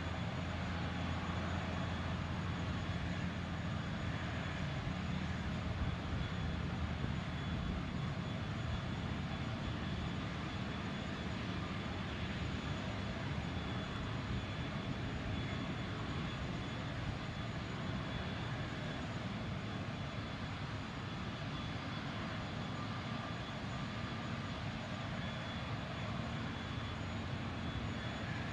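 Airbus A320-251N's CFM LEAP-1A turbofans running at taxi power: a steady low rumble with a thin, constant high whine.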